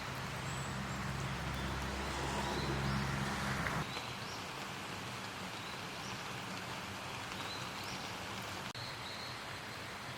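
Steady rain falling, an even hiss, with faint short bird chirps recurring through it. A low steady hum sits under the rain for the first four seconds and stops abruptly.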